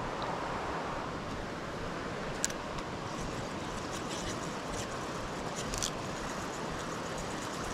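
Steady rush of flowing stream water. Over it, a sharp click about two and a half seconds in and a few light clicks and rattles a little later, from the spinning reel and line as the lure is cast and cranked in.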